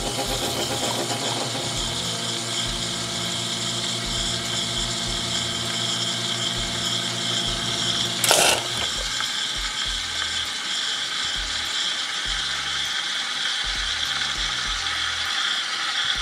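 Espresso machine's pump running steadily as a shot is pulled into a cup, a mechanical hum, with a single click about halfway through.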